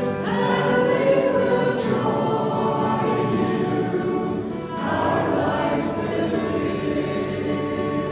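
Church congregation singing a hymn together, with new sung phrases starting near the beginning and again about five seconds in.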